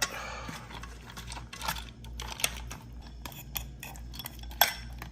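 Utensil stirring and mixing dog food in a bowl: irregular clinks and scrapes against the bowl, with one sharper clink about four and a half seconds in.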